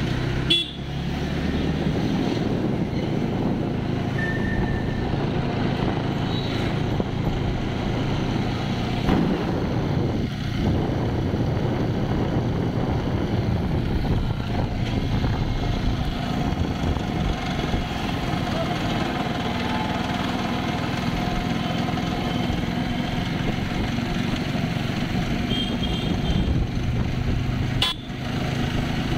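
Motorcycle riding through city traffic: the engine runs steadily under road and wind noise, and vehicle horns toot briefly a couple of times.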